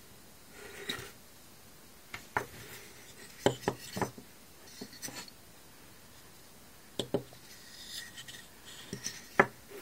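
Small wooden toy snowmobiles being handled: irregular light knocks and clacks with soft rubbing and scraping between them, the sharpest knock near the end.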